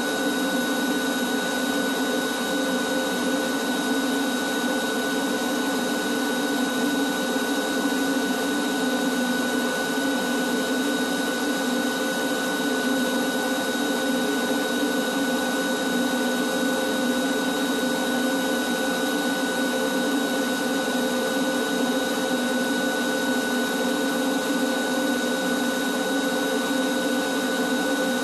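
Wet/dry shop vacuum running steadily while vacuuming dust off overhead steel trusses through a long hose and wand: an even rushing hum with a steady high whine.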